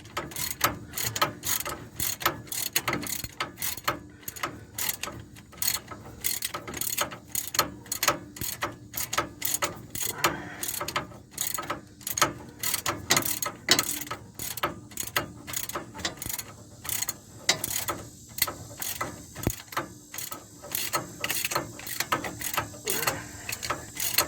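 Hand ratchet wrench clicking quickly and steadily, several clicks a second, as it works loose the mounting bolts of a worn front hub bearing assembly.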